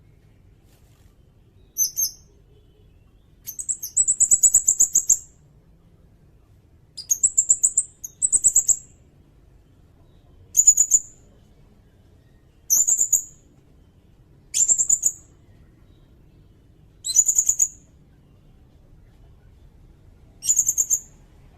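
A sirindet bird singing in short, rapid, high-pitched trills, about nine phrases, each a quick run of chip notes, with pauses of a second or two between them.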